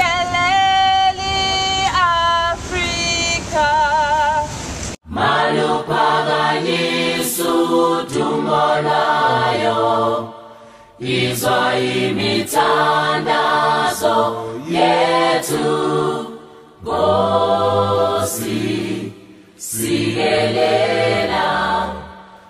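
One voice singing long held notes with a wavering vibrato, cut off about five seconds in by a group of voices singing together in harmony, in phrases of a few seconds with short pauses for breath.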